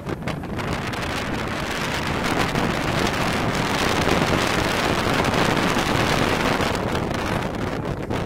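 Steady wind buffeting the microphone on the open deck of a sailing catamaran under way.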